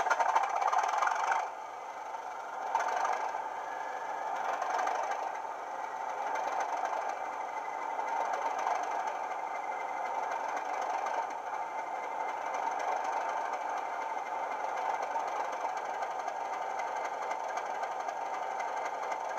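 Class 37 model locomotive's DCC sound decoder playing a recorded English Electric diesel engine through its small under-fan speaker: the engine idles with a rattling clatter. The level drops suddenly about a second and a half in, swells briefly near three seconds, then holds steady.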